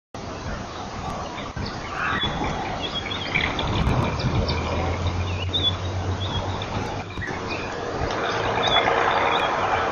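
Small birds chirping and calling in short, scattered notes over a steady hiss. A low hum comes in about four seconds in and fades after a couple of seconds.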